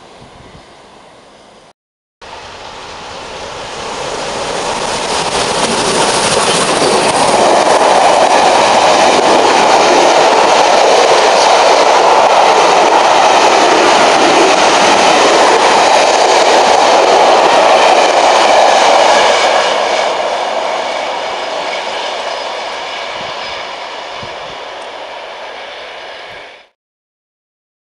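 A rake of Pullman coaches passing at speed, wheels running and clattering on the rails. The noise builds up, stays loud for about ten seconds, then fades as the train draws away, and cuts off abruptly near the end.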